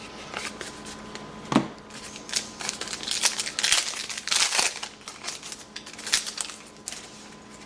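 Trading card pack wrapper crinkling and tearing as it is handled and opened, in irregular rustles, with a light knock about a second and a half in.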